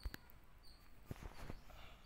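Faint, short, high chirps from small caged parrots, repeating about every half second, with a few soft knocks around a second in.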